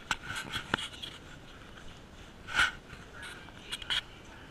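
Light scuffs and clicks of footsteps scraping on a gritty floor, with one louder scuffing rush about two and a half seconds in.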